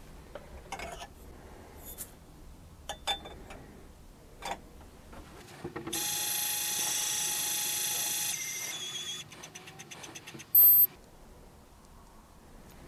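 Lyman Gen6 electronic powder dispenser: a few light clicks and taps from the pan being handled, then its dispensing motor runs with a steady high whir for about two seconds and slows to short stutters as it trickles in the last powder. About ten and a half seconds in, the scale gives one loud beep, signalling that the charge has reached its set weight.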